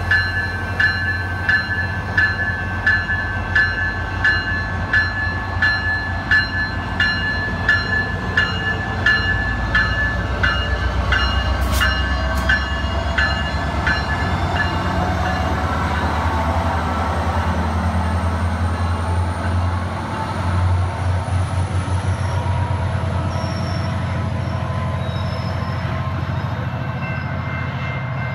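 SunRail commuter train's diesel locomotive pulling out and passing close by. Its bell rings about twice a second for roughly the first half, then stops, over the engine's low drone, which rises as the locomotive throttles up and rolls past with the coaches.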